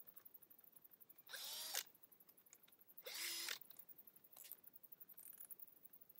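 Power drill running in two short bursts about a second and a half apart, each about half a second long, the motor spinning up and winding down.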